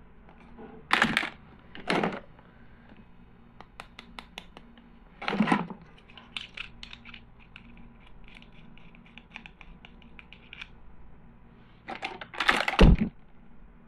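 Plastic toys and packaging being handled: scattered light clicks and taps, with four short louder noises, the loudest near the end.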